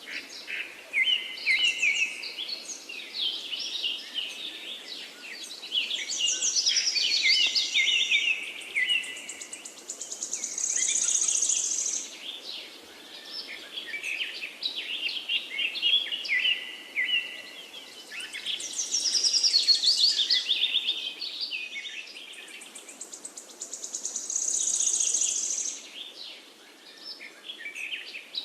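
Several songbirds singing and chirping at once, overlapping whistled phrases and rapid trills, with a high buzzy trill that swells and fades several times over a faint steady hiss.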